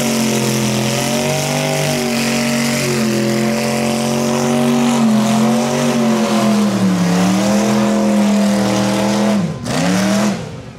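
Rat-rod pickup's engine held at high revs during a burnout, with the hiss of its spinning rear tyres. The engine note wavers, sags about seven seconds in, drops sharply near the end, briefly rises again, then falls away.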